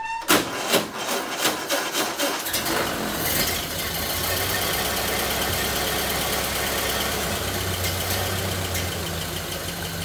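1931 Ford Model A's four-cylinder flathead engine turning over on the starter with rapid, evenly spaced strokes, catching after about two and a half seconds and settling into a steady idle. The start shows that the coil and ignition on the newly installed wiring harness work.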